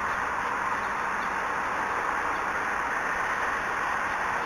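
Steady background hiss at an outdoor ballfield, even and unbroken, with no distinct events.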